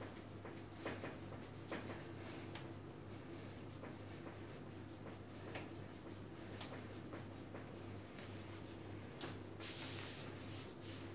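Hands massaging a bare foot and ankle: faint skin-on-skin rubbing in many short repeated strokes, a little louder near the end, over a steady low hum.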